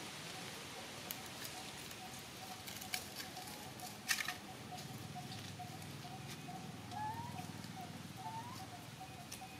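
Dry leaves crackling and rustling as monkeys move over and handle them, with the sharpest crackles about three and four seconds in. Under it a faint chirp repeats steadily, and a few short rising squeaks come in the second half.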